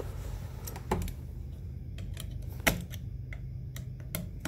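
Light clicks and taps of a wire loop being set under a wall switch's terminal screw and a screwdriver fitting onto the screw. Two sharper clicks stand out, about a second in and near the middle, over a steady low hum.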